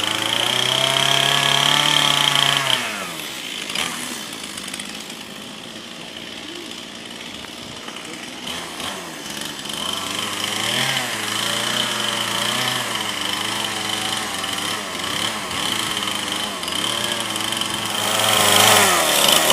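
Chainsaw cutting into wood as a carving is roughed out, the engine revving up and dropping back as the throttle is worked. It runs high at first, eases off after about three seconds, then climbs again and is loudest near the end.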